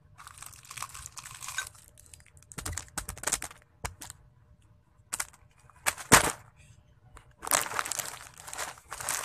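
Plastic snack packaging crinkling and rustling in irregular bursts as it is handled, with one louder knock about six seconds in.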